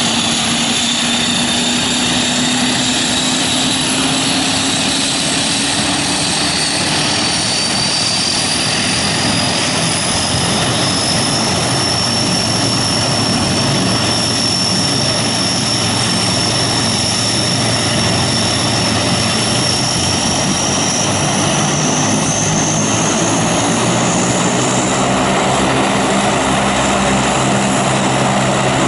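Lockheed Hercules's Allison turboprop engines running on the ground during engine startup, propellers turning. A high turbine whine rises slowly in pitch through most of the stretch as an engine spools up, over steady propeller and engine noise.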